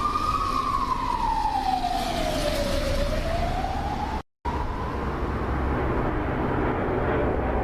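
Emergency vehicle siren wailing, its pitch slowly rising and falling, over a steady low rumbling noise. The sound cuts out for a split second about four seconds in, after which the siren holds a steadier, fainter note under the rumble.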